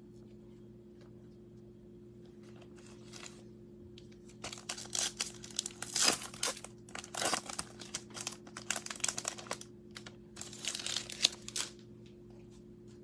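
Foil wrapper of a Panini Prizm baseball card pack being torn open and crinkled by hand. It comes as a run of crackling rips, starting about four seconds in and stopping shortly before the end.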